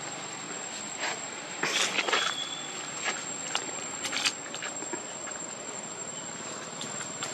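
Outdoor forest ambience: a steady, high insect drone with scattered sharp clicks and rustles, the loudest cluster about two seconds in.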